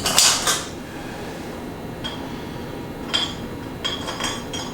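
Metal hardware and hand tools clinking: a short clatter at the start, then a few light clinks, some with a brief ring, as bolts and gaskets are fitted to a jet ski exhaust manifold.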